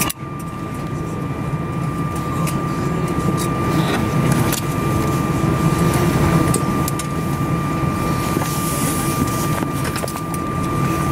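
Cabin noise of an Airbus A319 taxiing with its CFM56 engines at idle: a steady low rumble with a thin, steady high whine over it.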